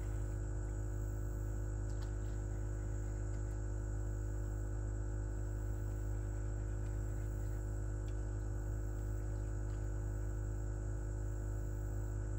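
Electric bow-mounted trolling motor running with a steady low hum and several held whining tones above it that do not change.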